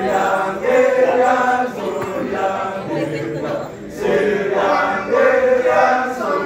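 A group of men chanting together in a Balinese kecak-style chant, in about three long phrases with brief breaks between them.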